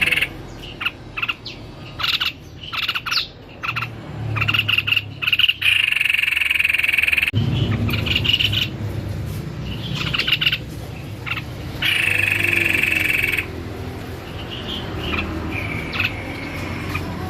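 White-necked babbler singing energetically: repeated bursts of quick, chattering high notes, some lasting about a second, with short gaps between them.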